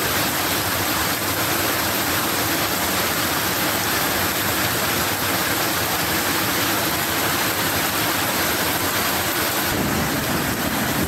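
Heavy rain pouring down, with storm runoff washing over gravel ground; a steady, loud hiss of falling and running water.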